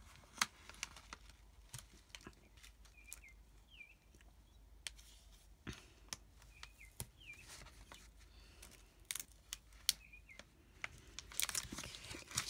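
Faint crinkling and small clicks of a plastic page protector being handled, with a denser tearing noise in the last second as double-sided tape is pulled off its roll.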